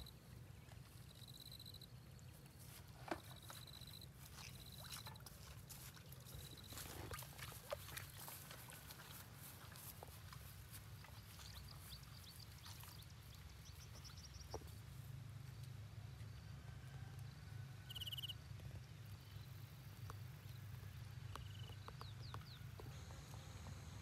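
Quiet outdoor ambience: a steady low hum with faint scattered high chirps and a few soft clicks.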